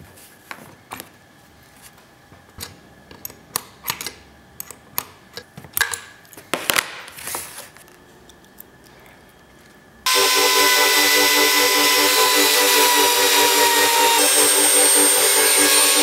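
Sharp metal clicks and taps as a bit and clear base plate are fitted to a compact trim router and tightened with a wrench. About two-thirds of the way in, the trim router switches on and runs at full speed with a steady high whine.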